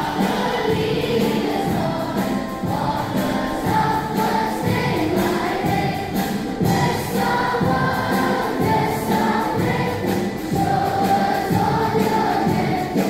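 Schoolchildren and teachers singing together as a large group, a steady choral song with no pause.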